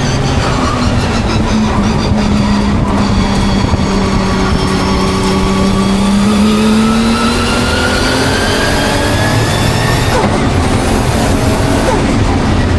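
Nissan Skyline's engine on a fast lap of a racing circuit: the revs ease down for the first few seconds, then climb steadily, break off with a gear change about ten seconds in, and climb again. The owner calls the engine misfiring.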